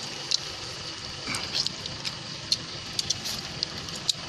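Scattered light clicks and taps from people eating with their hands around bowls and an aluminium pot, over a steady high-pitched background drone.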